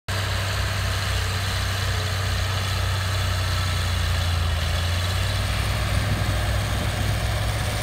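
Small crawler bulldozer's diesel engine running with a steady low drone while the dozer pushes soil.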